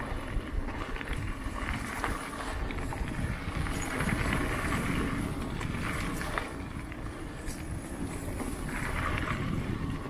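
Mountain bike rolling down a dirt singletrack: tyre noise on dirt and wind on the microphone, with a few sharp rattles and knocks as the bike goes over rough ground.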